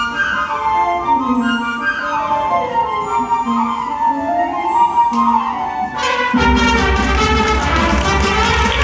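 High school wind ensemble playing: light, high woodwind melody lines, then about six seconds in the full band comes in louder with a heavy bass underneath.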